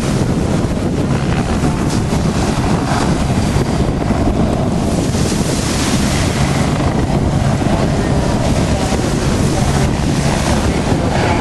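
Strong wind buffeting the microphone, a dense, steady rushing noise that swells and eases every few seconds, with a faint low steady drone underneath.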